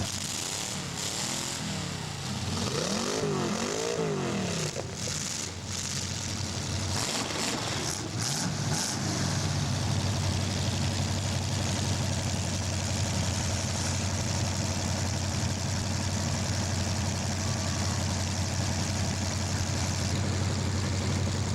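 Several demolition derby cars' engines revving, their pitch rising and falling repeatedly over the first few seconds, then running together in a steady, dense drone.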